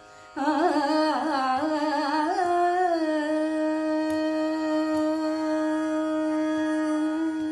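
A woman singing a Carnatic devotional song with no clear words heard: about half a second in she sings a phrase of quick, wavering ornamented turns, then from about three seconds in she holds one long steady note.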